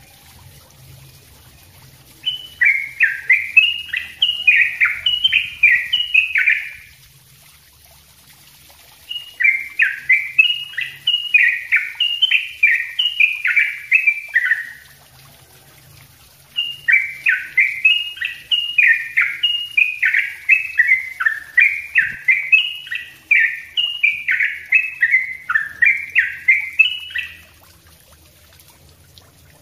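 Yellow-vented bulbul (trucuk) singing a dense, rapid-fire 'ropel' song in three bursts of several seconds each. Every burst is a quick run of short falling notes, with pauses of about two seconds between bursts.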